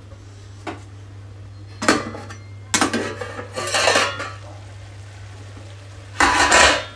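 Metal pots and utensils clattering: several separate knocks and clinks, a longer rattling stretch in the middle, and the loudest clatter near the end.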